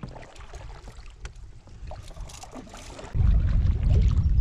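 Quiet lapping and small knocks in a canoe, then about three seconds in a sudden loud low rumble of wind buffeting the microphone, which keeps going.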